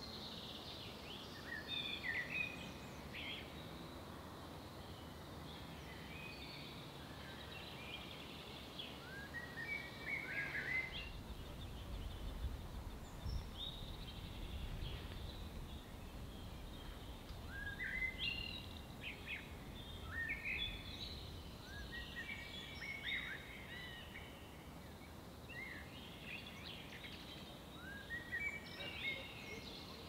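Small songbirds chirping and singing in short clusters of quick notes, over a faint steady outdoor hiss, with a low rumble setting in about a third of the way through.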